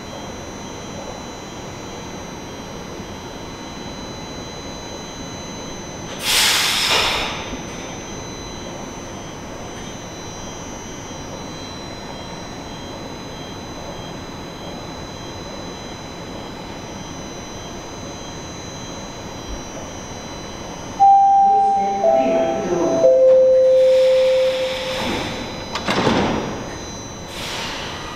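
Toronto Rocket subway train standing at the platform with a steady hum, and a short hiss of air about six seconds in. Near the end the door chime sounds as three held tones stepping down in pitch, and the doors slide shut with rushes of air.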